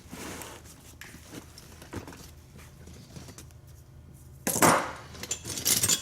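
Metal hand tools being rummaged out of a tool bag: rustling and small clinks, then two loud clatters of tools knocking together about four and a half seconds in and again near the end.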